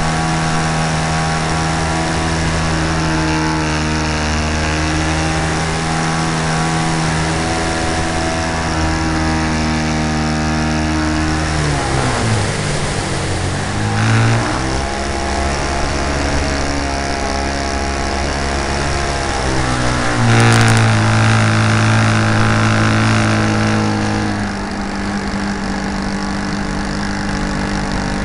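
Great Planes Slow Poke RC model airplane's engine running in flight, heard close up from a camera mounted on the plane. The pitch drops about twelve seconds in as the throttle comes back, climbs again two seconds later, and rises and gets louder about twenty seconds in before easing off slightly near the end.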